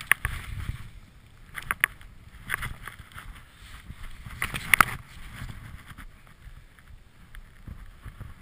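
A skier thrashing in deep powder snow: ski poles plunging and swishing through the snow and gear knocking against the camera, in a run of sharp scuffs loudest about two and five seconds in, then quieter.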